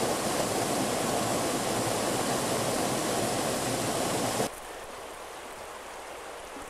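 Water rushing over small rock-ledge cascades in a creek. About four and a half seconds in, the sound cuts off abruptly and gives way to a quieter, steady rush of river water.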